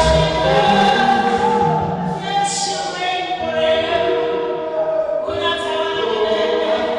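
Gospel choir singing worship music in long, held notes.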